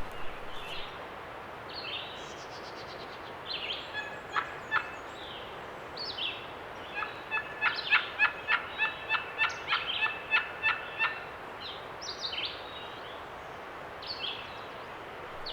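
Wild birds calling: short, high, downward-sliding notes scattered throughout, and from about seven seconds in a run of evenly spaced sharp notes, about four a second, lasting some four seconds.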